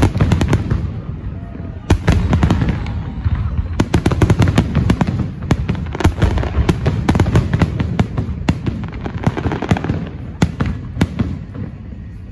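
Aerial firework shells bursting in rapid succession: a dense barrage of loud bangs with crackling, thinning out near the end.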